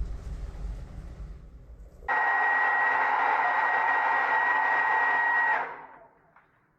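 Hair dryer switched on about two seconds in, running with a steady high whine over a rush of air for about three and a half seconds, then switched off and winding down.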